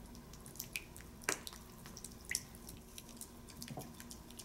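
Silicone spatula stirring a runny syrup-and-oil mixture in a glass bowl: faint, irregular wet clicks and ticks, with a louder one a little over a second in.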